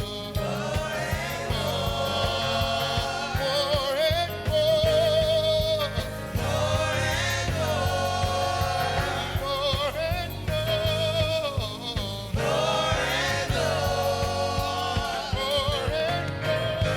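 Gospel choir singing with vibrato over a steady band accompaniment.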